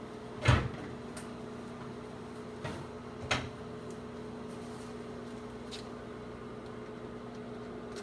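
GE countertop microwave oven running with a steady hum. A sharp knock comes about half a second in, and two fainter knocks come around three seconds.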